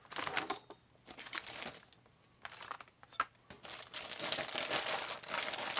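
Clear plastic bags of small metal kit parts crinkling and rustling as they are handled, in irregular bursts that become nearly continuous after about three and a half seconds, with one sharp click just before.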